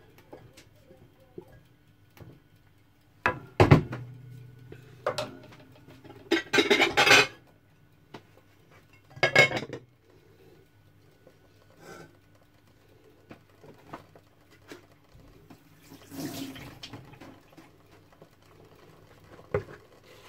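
Kitchen clatter of pots and utensils being handled and set down on a counter, with a loud double metal clank about three and a half seconds in and a few short rushing sounds between scattered knocks.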